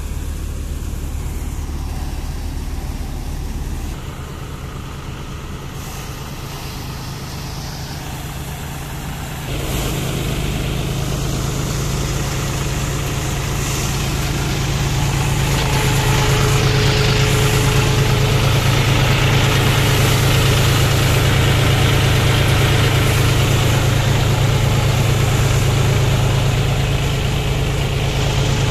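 John Deere 5045 D tractor's three-cylinder diesel engine running steadily while driving a Vardhman threshing machine, its fan and drum whirring as they blow straw out. There is a strong low hum throughout, and the sound steps up in loudness about a third of the way in and again around halfway.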